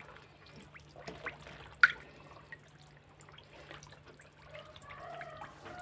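Catfish at the water surface of a plastic basin, making scattered small splashes and drips, with one sharper splash about two seconds in.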